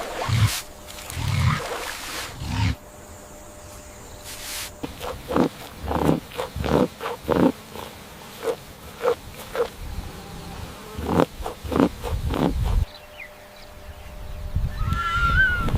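A large animal's short, deep calls: a few low grunts, then a run of repeated short calls, about two a second in places. The sound changes abruptly twice, and a higher rising-and-falling call starts near the end.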